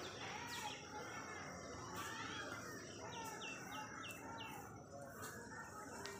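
Birds chirping and calling, with a quick run of about five short falling notes a little past the middle.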